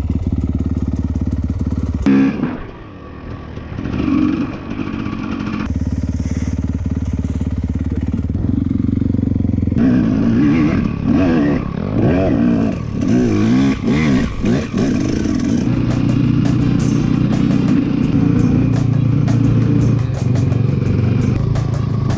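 Dirt bike engine running, revved up and down several times in quick succession in the middle of the stretch, otherwise holding a steady note.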